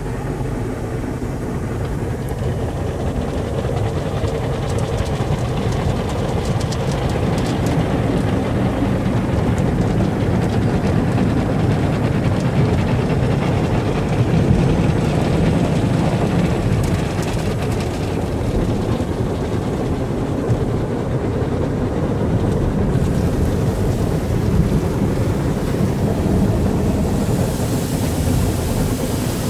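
Automatic car wash heard from inside the car: rotating brushes and water spray scrub across the windows and body in a loud, steady rumble. Near the end a hiss comes in on top.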